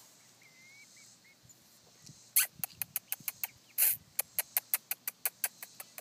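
A rapid run of sharp taps, about five or six a second, starting a little over two seconds in, with two louder knocks among them: chickens pecking at scraps on the ground close to the microphone. A faint short chirp comes just before the taps.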